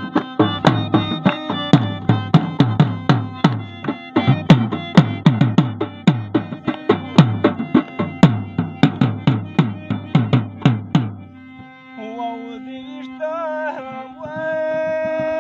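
A dhol barrel drum and a plucked Pashto rabab play a fast folk rhythm; about three-quarters of the way through the drumming stops and a man's voice takes over, singing a wavering line and then holding a long note, as in Pashto tappa singing.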